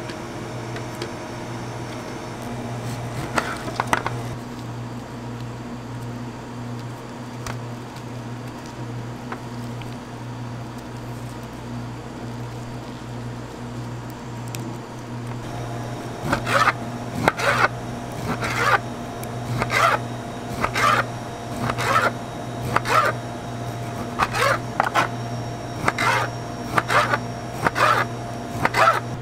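Knife cutting down through a peeled orange onto a plastic cutting board: sharp cuts about once or twice a second from about halfway in, after quieter handling and trimming. A steady low hum runs underneath.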